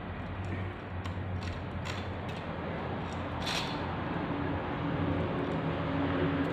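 Light metallic clicks and one brief scrape from hand work on a motorcycle engine's timing chain, over a steady background hum.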